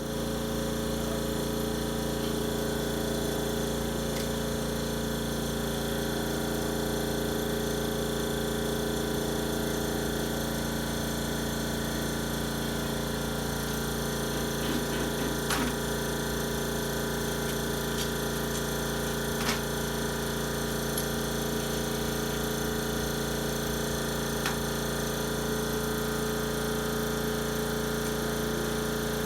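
Electric air compressor running steadily as it pumps up its tank, an even hum that does not change, with a couple of faint clicks partway through.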